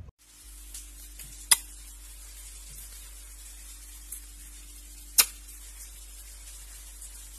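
Two sharp, loud clicks, about a second and a half in and again about five seconds in, over a steady faint hiss and low hum.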